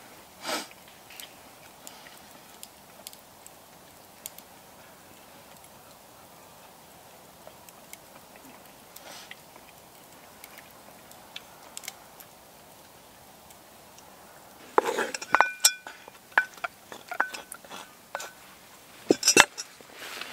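Quiet spoon scrapes and taps in a bowl, with chewing, during a meal of stew. About 15 seconds in and again near the end comes a clatter of knocks and clinks with brief metallic ringing, as the pots and spoon at the cast-iron Dutch oven are handled.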